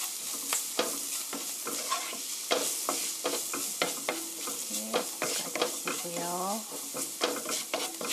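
Wooden spatula stirring and scraping diced onion, garlic and carrot through sizzling oil in a frying pan, in repeated uneven strokes over a steady frying hiss. A spoonful of flour is being toasted in the fat until golden, the base of a cream sauce.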